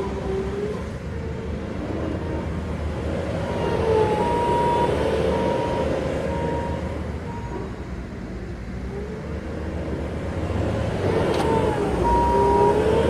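Bobcat S770 skid steer's diesel engine and hydraulics working under load, the pitch of the engine and hydraulic whine rising and falling twice as the machine is operated. A brief click near the end.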